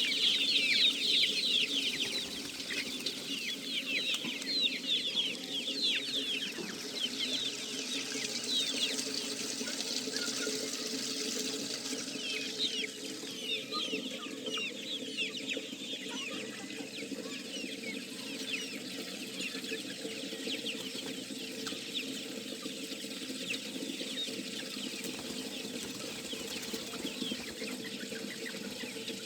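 A large flock of laying hens clucking and calling, many short calls overlapping, busiest in the first few seconds. A steady low hum runs underneath.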